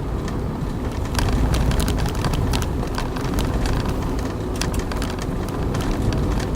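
A 2011 Toyota Avanza with manual gearbox running on the road: a steady low rumble of engine and road noise, with a patter of irregular sharp ticks from about a second in.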